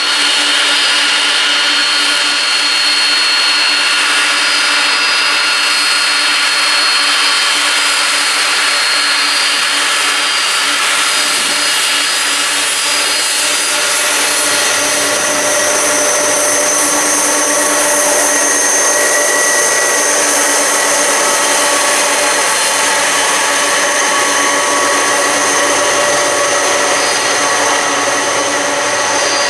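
Boeing 747-400's four turbofan engines whining steadily at taxi power as the jet rolls past. A higher whine grows stronger about halfway through as the aircraft turns away.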